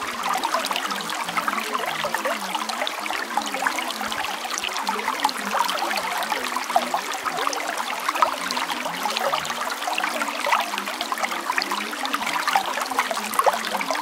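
Steady trickling of running water, like a flowing stream, continuous and even.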